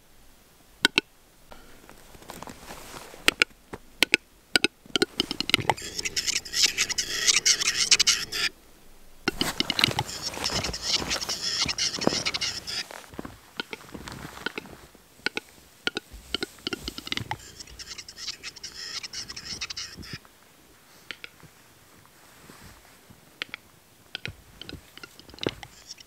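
Footsteps crunching in snow in irregular stretches, with scattered sharp clicks.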